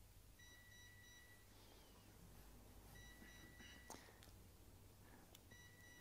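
Faint electronic beeping, like an alarm clock: three short runs of rapid high beeps, about two and a half seconds apart, over near-silent room tone.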